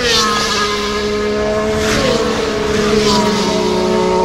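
Formula 1 cars with turbocharged hybrid V6 engines passing at speed, about three in quick succession, the engine pitch dropping sharply as each one goes by.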